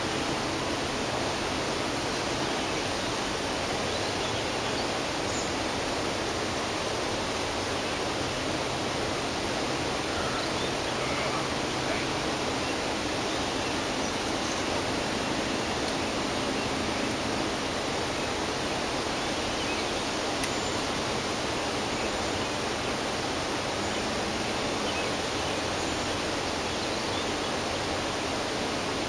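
Steady rushing of flowing river water: an even hiss that does not change.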